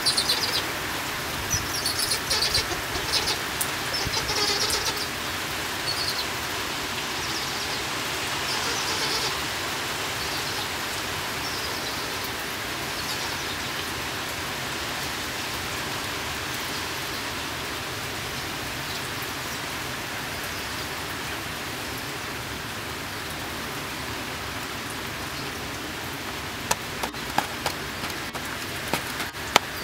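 Steady rain falling, an even hiss, with birds calling in high chirps through the first ten seconds or so. A few sharp taps come near the end.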